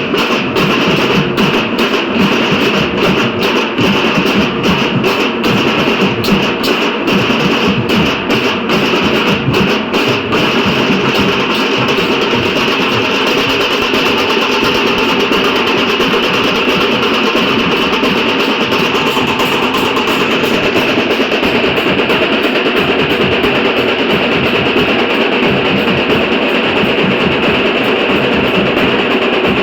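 Dhol-tasha drumming: a troupe of dhol barrel drums and tasha snare drums playing a loud, continuous rhythm. Sharp strokes land about twice a second for the first ten seconds or so, then the drumming thickens into a steadier, denser roll.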